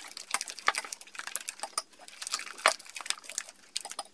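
Spatula stirring a thick, foamy slime mixture of PVA glue and shaving foam in a glass bowl, making irregular soft squishing and clicking sounds.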